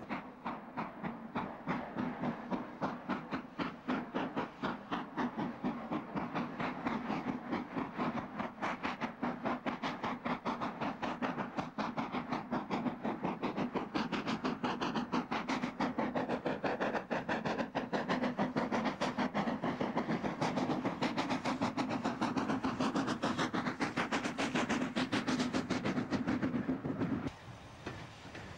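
Somerset & Dorset Joint Railway 7F 2-8-0 steam locomotive No. 88 working a train, its exhaust beating in a rapid, even rhythm; it drops quieter shortly before the end.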